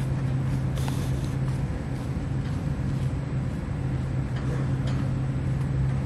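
Steady low drone of a vehicle's engine and running gear, heard from inside the cabin.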